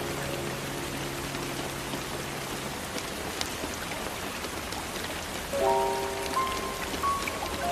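Steady rain falling, with background music over it: a low held note stops about three seconds in, and a new chord of held notes comes in after about five and a half seconds.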